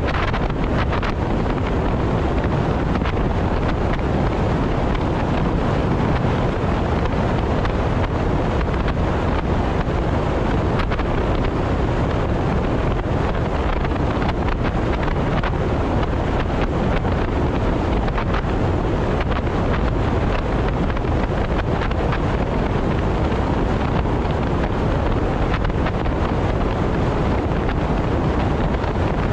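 Steady rush of wind and tyre noise from a car travelling at expressway speed, with wind hitting the microphone; it holds even, with no changes.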